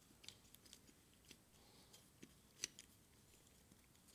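Near silence with a few faint, scattered metallic clicks and ticks: an arc-welder cable lug and pliers being handled and fitted onto a circuit breaker's bolt terminal. The clearest click comes a little past halfway.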